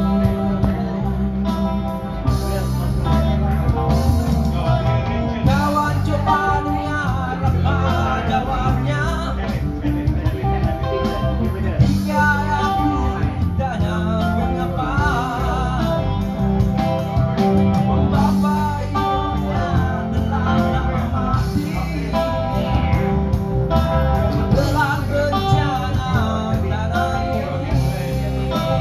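Man singing into a microphone over instrumental accompaniment, amplified through a PA system at an outdoor live performance.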